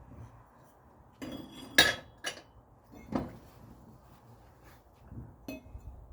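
Metal clanks and clinks from the steel parts of a manual tire changer being handled and fitted in place, several separate knocks with the loudest about two seconds in.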